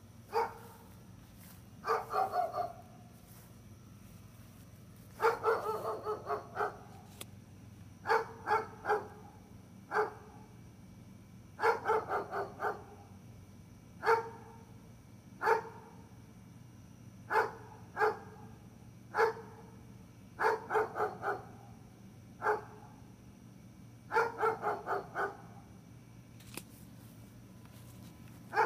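A dog barking over and over in runs of one to six quick barks, with pauses of a second or two between runs. A faint steady low hum runs underneath.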